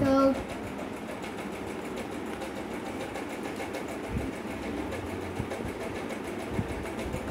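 A steady mechanical whir running in the background, with a short pitched sound at the very start and a few faint low knocks.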